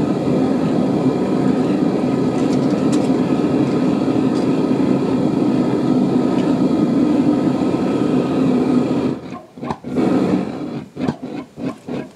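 Propane burner of a refractory-lined shop-vac foundry furnace running with a steady, even noise, which cuts off suddenly about nine seconds in. Near the end a fast, uneven pulsing follows.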